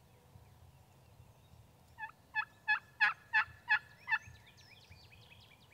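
Rio Grande wild turkey hen yelping: a series of seven evenly spaced yelps, about three a second, starting about two seconds in, each note breaking downward in pitch.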